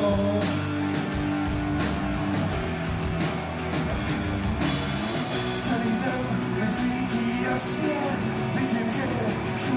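Rock band playing live: electric guitars, bass guitar and a drum kit with regular drum and cymbal hits, with a man singing.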